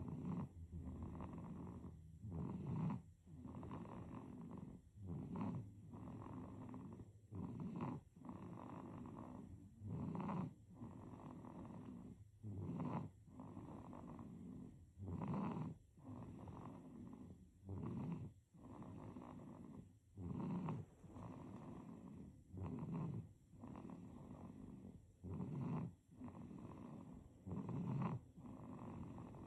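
A baby snoring in regular breaths about every two and a half seconds, each with a short, louder peak.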